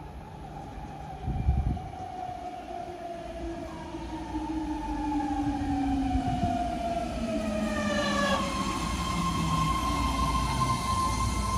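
A BART train pulling in, its propulsion whine falling steadily in pitch as it slows while the rumble grows. There is a brief low thump about a second and a half in. From about eight seconds in a steady high whine takes over.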